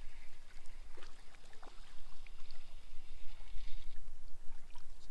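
Open-water boat ambience: a steady low wind rumble on the microphone and small water trickles and laps against the hull, with scattered faint ticks.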